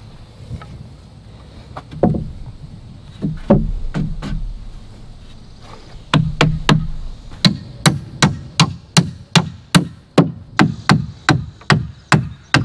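Hammer striking the wooden 2x4 framing of a stud wall: a few scattered knocks, then from about six seconds in a fast, even run of blows, about three a second.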